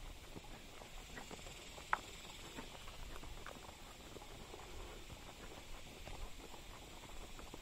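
Horses walking on a dirt forest trail: soft, irregular hoof steps and the crunch of leaf litter and twigs underfoot, with one sharper click about two seconds in.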